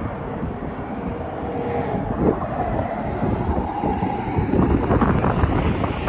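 Wind buffeting the microphone over a steady drone of passing traffic.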